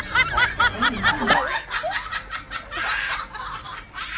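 A person laughing in quick, high-pitched bursts, about five a second, that break off about a second and a half in; fainter noise follows.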